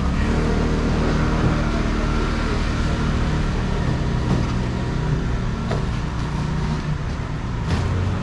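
Steady low drone of an engine running at idle.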